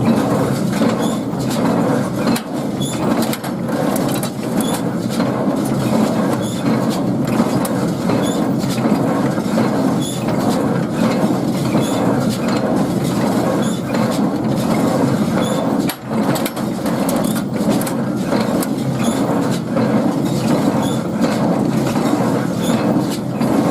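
Welger AP 42 square baler running behind a tractor on a test run after knotter repair, a steady mechanical clatter with frequent knocks over the tractor engine.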